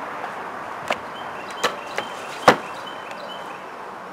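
A few sharp knocks and clacks as a bus window's metal sash frame and glass pane are handled and set down on a work surface; four knocks in all, the loudest about two and a half seconds in.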